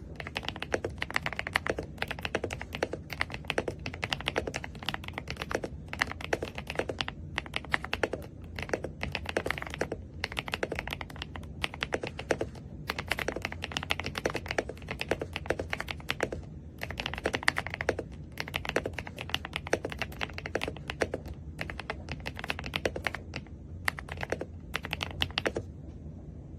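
Mechanical keyboard being typed on: quick runs of keystroke clacks broken by short pauses every few seconds, over a steady low hum.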